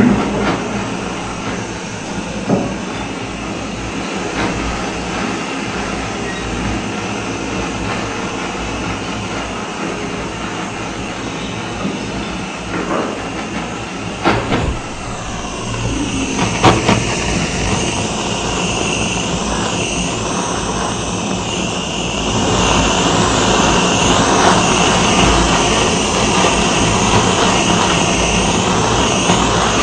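Jeweller's gas torch flame hissing steadily as it anneals a coil of gold wire, with a few light knocks on the bench. The hiss gets louder in the last third.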